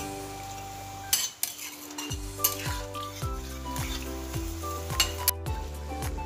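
Metal spatula stirring and scraping fish curry as it sizzles and simmers in a kadai, with a few sharp clinks. Background music with a steady beat plays underneath.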